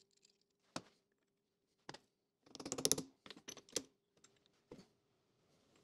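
Sharp metallic clicks and clinks of a part and hand tools being handled at a metal lathe's chuck: single clicks about a second and two seconds in, then a quick rattling run in the middle and one more click later. A faint steady hum sits underneath.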